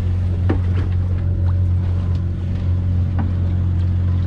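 A small fishing boat's engine running with a steady low hum, with a couple of short knocks or clicks, one about half a second in and one about three seconds in.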